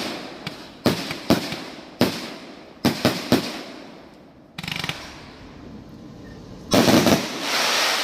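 Backyard fireworks going off: a quick series of sharp bangs in the first few seconds, then a short run of rapid crackling pops. The loudest burst of pops comes near the end and trails off into a hissing crackle.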